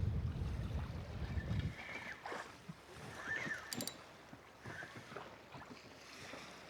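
Wind buffeting the microphone as a low rumble for the first second and a half or so, then dropping away to faint scattered clicks and knocks on the boat.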